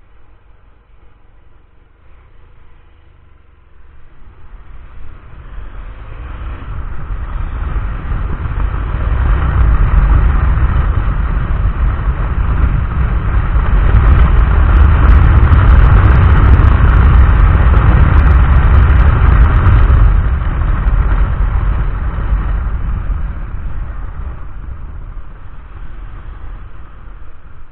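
Wind rushing over the microphone of a camera on a moving motorcycle, with low rumble from the ride, building up over the first ten seconds, loudest in the middle, then easing off toward the end.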